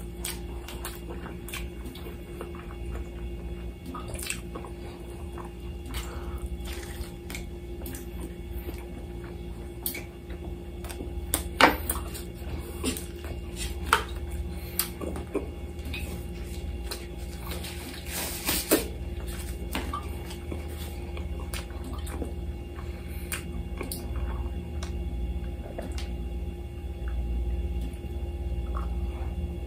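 A person eating lamb chops and rice by hand close to the microphone: wet chewing and mouth smacks with scattered sharp clicks, over a steady low hum.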